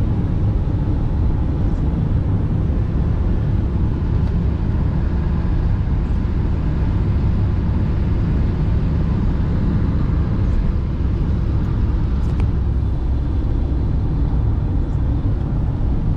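Steady rumble of a car driving at speed on a wet highway, heard inside the cabin: engine and tyre noise with no change throughout.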